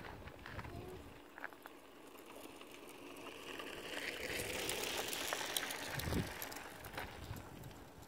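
A vehicle passing by: its noise swells to a peak about halfway through and then fades, with a few faint clicks.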